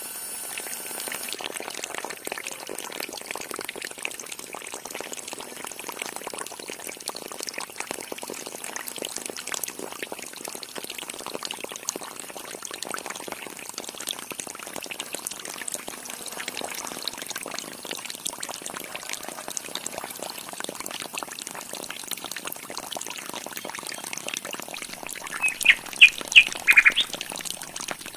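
Water pouring steadily from a small hose into a miniature concrete tank and trickling out through a pipe into a channel. Near the end, several short, high chirps cut in, the loudest sounds here.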